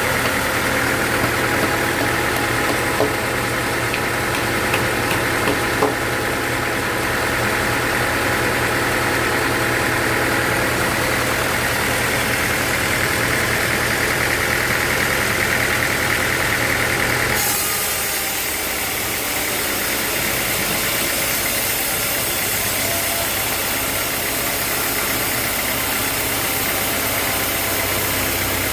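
Sawmill machinery running steadily, a constant engine-like hum. About 17 seconds in the sound changes abruptly to a hissier, higher-pitched noise.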